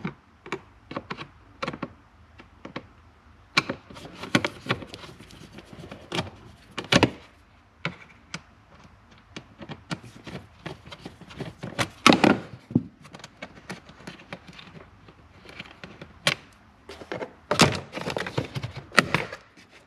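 Irregular clicks, taps and knocks of a screwdriver working at a car's plastic lower dash trim, and of the trim panel being handled and pulled loose. A few louder knocks come about midway and several near the end.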